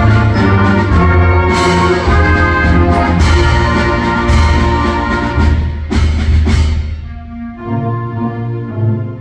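School concert band playing full sustained chords across woodwinds and brass, with tubas underneath and about four sharp percussion hits. About seven seconds in, the music drops to a thinner, quieter passage.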